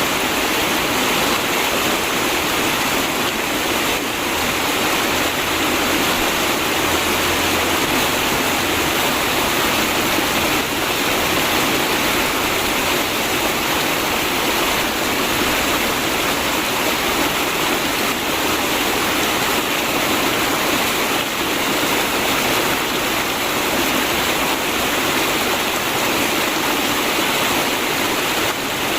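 River water flowing and rushing steadily, an even, unbroken wash of water noise.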